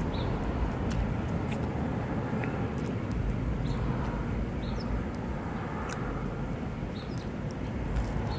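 Steady low rumble of outdoor background noise with traffic, with a few faint, short, high chirps and soft clicks scattered through it.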